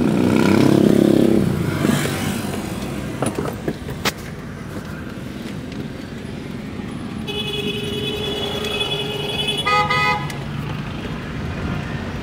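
2010 Kia Rio being driven, its engine running under way with road noise and a swell in the first two seconds. About seven seconds in, a car horn sounds for over two seconds and ends in a short, louder honk.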